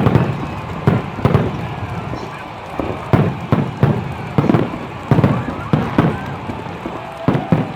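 Fireworks going off in a continuous barrage of sharp bangs, about two to three a second at uneven spacing, each with an echoing tail.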